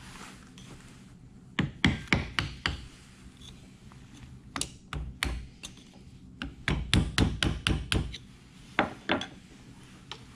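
Hammer tapping a screwdriver against the U-joint retaining clips on a driveshaft yoke to break them loose. The blows come in short bursts: a handful about two seconds in, a few more around five seconds, a quick run of about eight near seven seconds, and two last taps near nine seconds.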